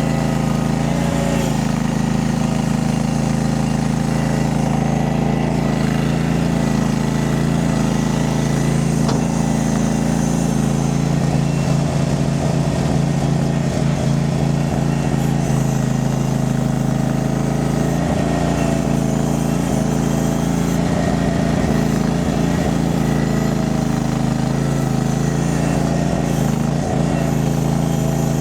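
Mini skid steer's engine running steadily at a constant speed, with some faint scattered clatter partway through.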